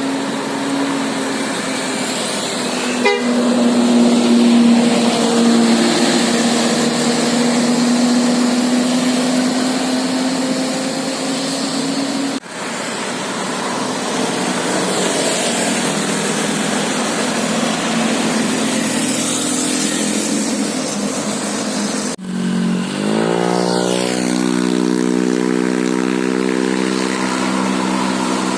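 Bus telolet musical air horn sounding long held notes. The sound breaks off briefly about twelve seconds in and again about twenty-two seconds in; after the second break the notes slide up in pitch and settle into a steady chord.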